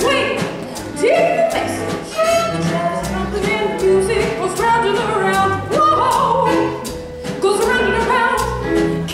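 Swing-style band music with a steady beat of sharp percussion hits under pitched melodic lines that swoop upward several times.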